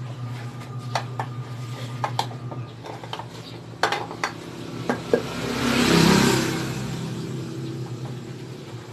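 Sharp metallic clicks and taps from hands and a rag working on a motorcycle's cylinder head, over a steady low hum. A rushing noise swells up about six seconds in and fades again.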